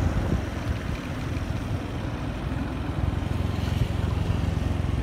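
A motorbike on the move: a steady rumble of engine and road, with wind rushing over the microphone.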